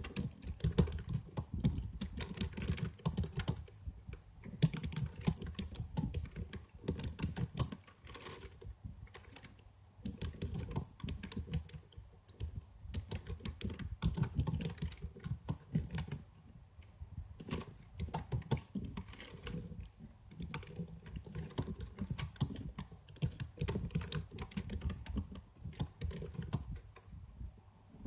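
Typing on a computer keyboard: fast runs of key clicks broken by short pauses every few seconds.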